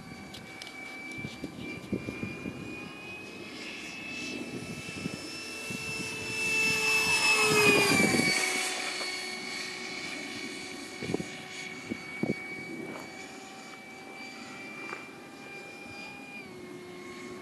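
Electric ducted-fan whine of a Starmax Alpha Jet 90 mm model jet flying past. The whine grows louder, peaks about eight seconds in as the jet passes close, and drops in pitch as it goes away. It then carries on as a steadier, fainter whine.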